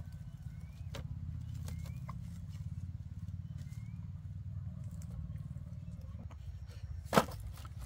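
Cut lengths of sugarcane knocking against each other as they are packed into a woven basket, with a few sharp knocks, the loudest near the end, over a steady low rumble.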